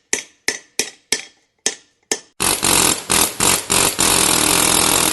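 A hammer strikes sheet metal seven times in quick, uneven succession, each blow ringing briefly. A loud, steady hiss of noise follows for about three seconds, with a few short breaks, and cuts off suddenly.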